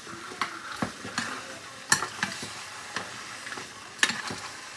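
Lobster pasta sizzling in a hot frying pan as it is stirred and tossed, a steady hiss with scattered clicks and two sharper knocks, one about two seconds in and one near the end.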